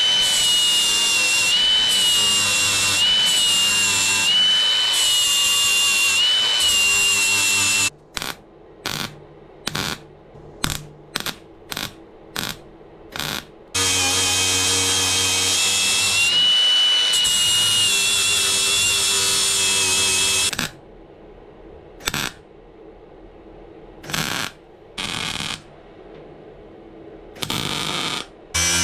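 Cordless angle grinder grinding the steel cab panel for about eight seconds at a time, twice, its motor whine wavering under load. Between and after the grinding come short separate bursts of arc welding as the small holes are filled with tack welds.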